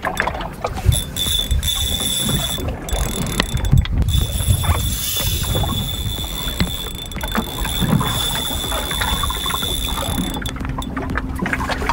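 Light-tackle spinning reel being cranked, its gears whirring and clicking in quick irregular ticks as line comes in against a hooked fish on the bent rod. A steady low rumble runs underneath.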